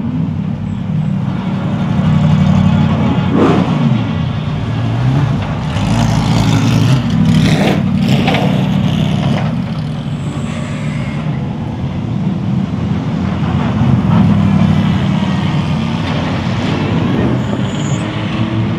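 Several GT3 race cars rolling past slowly in a procession, their engines running with a deep low rumble and a few brief revs in the middle.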